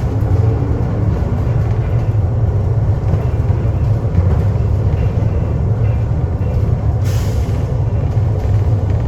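Vehicle noise: a steady low rumble, with a short hiss about seven seconds in.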